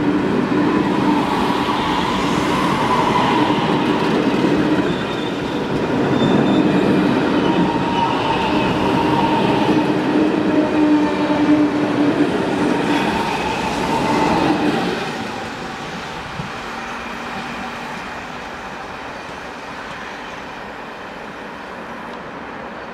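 Czech Pendolino (class 680) electric tilting train pulling away close by: a steady electric whine from the traction equipment over the rumble and clatter of the wheels on the rails as the cars pass. About fifteen seconds in, the last car goes by and the sound drops, fading as the train moves off.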